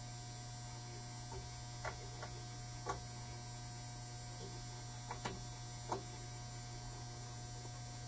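Steady electrical mains hum, with a few faint clicks as multimeter probe tips are set against the metal end caps of cartridge fuses.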